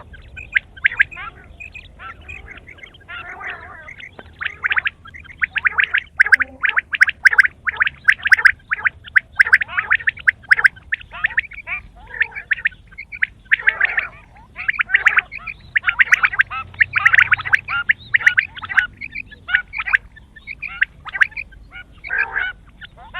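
Quail calling in rapid runs of short, sharp notes. The notes are sparser for the first few seconds and come densely from about six seconds in.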